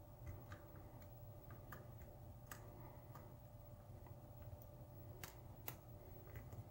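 Faint, irregular metallic clicks and ticks of a lock pick working the pins inside a brass pin-tumbler lock cylinder held under tension, about a dozen small clicks spread unevenly.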